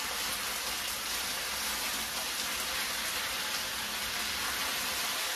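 Thin strips of raw potato frying in a large frying pan, a steady, even sizzle.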